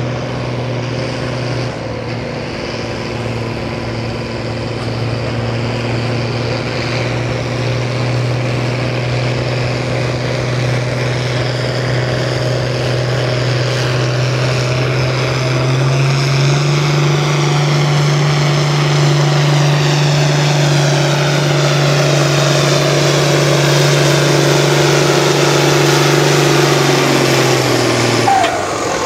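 Farm pulling tractor's diesel engine working at full load as it pulls the sled, loud and steady. Its pitch steps up about halfway through, then the engine backs off sharply near the end.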